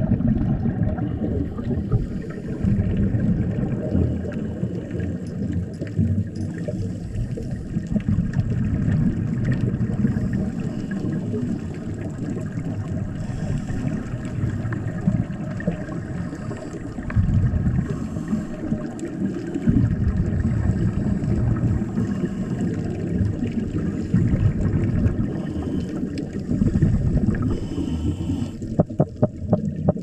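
Halfmoon triggerfish (Sufflamen chrysopterum) making its alarm sound, recorded underwater: low, rough sounds over the water noise. Near the end they turn into a regular train of quick knocks.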